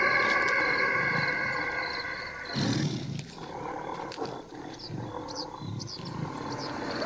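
Tiger roar sound effect: one loud roar about two and a half seconds in, then several shorter, lower calls. Before it, a drawn-out droning tone fades away over the first two seconds or so, and faint high chirps come near the end.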